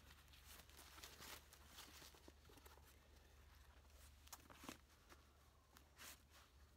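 Near silence with faint, scattered rustles and soft knocks: a foam sit pad and canvas bag being handled and feet shifting in dry leaves.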